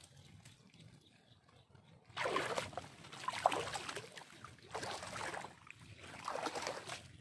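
Water sloshing and splashing in four bursts, about one every second and a half, starting about two seconds in.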